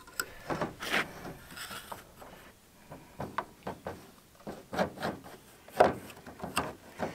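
A thin filed-down metal hook scraping packed gunk out of the chain groove of a Husqvarna 350 chainsaw bar, in irregular scrapes and small clicks of metal on metal. The groove is clogged with wet, soggy wood pulp mixed with bar oil.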